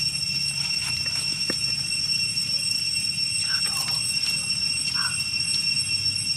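Steady high-pitched drone of insects from the forest at dusk, over a faint low hum. Two brief squeaks from the young macaques come around the middle.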